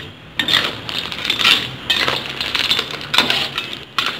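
Clams in their shells being stirred in a wok with a metal spatula: repeated clinks and scrapes of shell against shell and against the pan, starting about half a second in.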